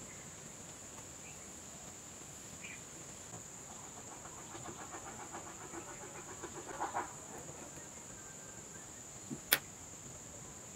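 Small hand-tool work on a wooden knife handle: faint scraping and ticking of a screwdriver against a metal blade clamp and a small disc, building to a few louder taps, then one sharp click near the end. A steady high hiss lies underneath.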